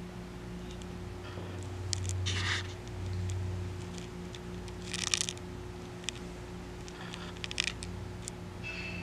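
Handling noise: a few brief rustles and scrapes from a gloved hand moving a small plastic gas detector near papers. The rustles fall about two, five and seven and a half seconds in, over a steady low hum.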